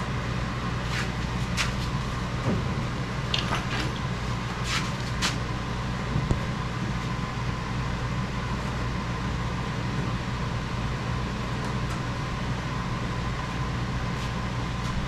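Steady low machine hum, like a shop fan or air-conditioning unit running, with a few light clicks and taps in the first five seconds or so.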